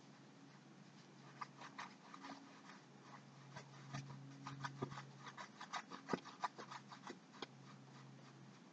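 Paintbrush stroking and dabbing paint onto a stretched canvas: faint, irregular scratchy strokes, thickest in the middle, over a low steady hum.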